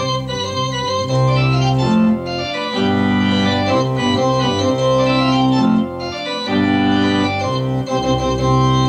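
Viscount Cadet digital organ playing a march in full held chords over deep bass notes, with short breaks between phrases, ending on a final chord that is released at the very end.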